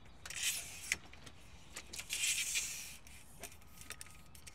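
Telescoping aluminium support leg of a Fiamma F45S awning being slid and handled. Two stretches of metallic scraping and rattling come about half a second in and around two seconds in, with a few sharp clicks between them.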